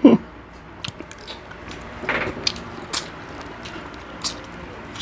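Close-up eating sounds: a person chewing frog meat, with scattered short wet clicks and smacks from the mouth and a brief noisy rustle about two seconds in.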